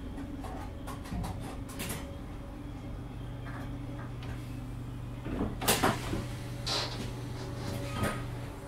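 Inside a British Rail Class 507 electric multiple unit at a station stop: a steady low hum from the unit's equipment. About five and a half seconds in comes a cluster of loud clunks, typical of the sliding passenger doors opening, and there are single knocks a second and two seconds later.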